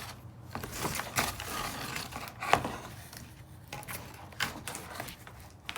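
Small parts and tools being handled: scattered light clicks and rustling, with one sharper click about two and a half seconds in.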